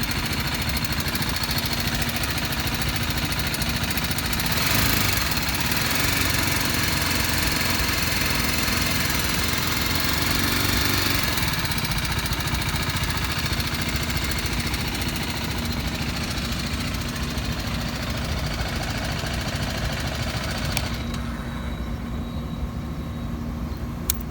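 BMW G310's 313cc single-cylinder engine running at idle, swelling briefly about five seconds in.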